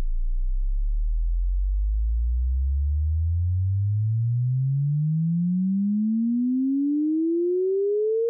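A pure sine-wave test tone sweeping slowly and steadily upward in pitch, from a deep bass hum to a mid-range tone, at an even, modest level. It is the dry sweep, unprocessed, with the compressor bypassed.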